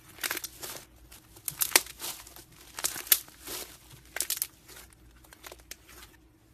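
Homemade slime being squeezed and poked by hand, giving irregular crackling, popping squelches; the sounds stop about six seconds in.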